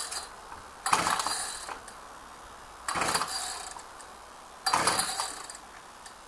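Ryobi two-stroke engine cranked by its recoil pull-starter three times, about two seconds apart. Each pull is a short rasp as the engine turns over without firing. The owner puts the hard starting down to stale fuel, and the recoil spring is playing up.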